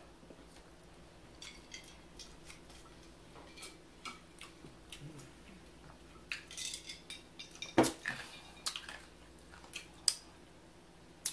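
Close-up eating sounds: chewing and small mouth clicks, a few gulps of drink from a glass about six seconds in, and scattered small knocks, the loudest a sharp knock just before eight seconds.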